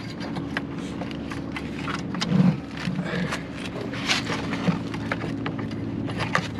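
Scattered small clicks and scrapes of hands working plastic trim and wiring during a headlight install, over a steady low hum.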